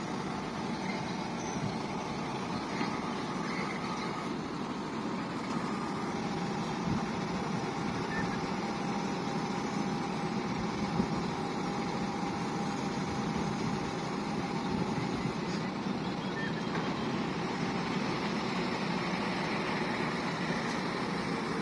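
Heavy truck's diesel engine running steadily to drive the hydraulics of its Fassi F330 truck-mounted knuckle-boom crane during a lift, with a faint steady whine through the middle stretch.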